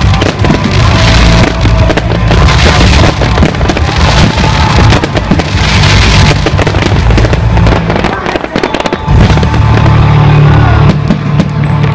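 Fireworks display: dense crackling and popping from many bursting shells, over loud music playing with the show. The sound dips briefly about two-thirds of the way through, then comes back as loud as before.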